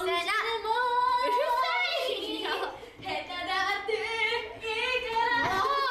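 A young woman's voice half-singing in a drawn-out, sing-song way, with long held notes that bend in pitch and a brief pause about three seconds in.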